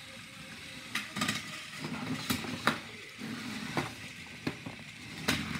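Hexbug BattleBots remote-control toy robots battling in a plastic arena: a steady low whir of their small motors and spinning weapon, with a scatter of sharp plastic clacks as they hit each other and the arena walls.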